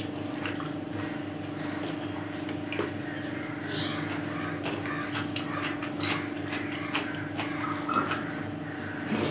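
Close-up eating sounds of chicken biryani eaten by hand: wet chewing and mouth smacks, with fingers squishing and mixing rice on the plate, in many short clicks over a steady low hum.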